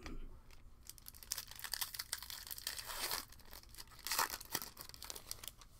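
Foil wrapper of a Panini Prizm baseball card pack being torn open and crinkled by hand: a dense run of sharp crackles and rustling that starts about a second in, is loudest a little after the middle, and stops near the end.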